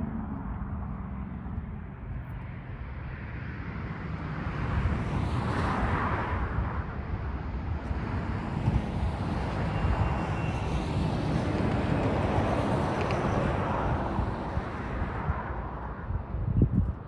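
A road vehicle going by, its noise swelling and then fading over about ten seconds, with a low thump near the end and a low rumble of wind on the microphone throughout.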